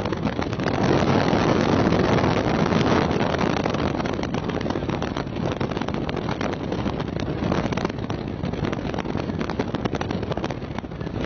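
Strong gusty wind buffeting the camcorder microphone: a loud, rough rushing noise, strongest from about a second in and easing a little after the first few seconds.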